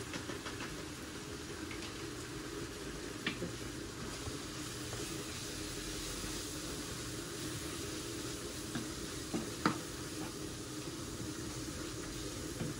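Onion, mushrooms and peppers frying in oil in a pan with the pasta sauce just added, a steady sizzle. Two short sharp knocks, about three seconds in and again later.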